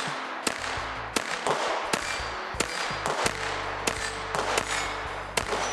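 A string of rapid shots from a Walther P22 .22 pistol, about ten in under six seconds, fired at steel targets during a timed run.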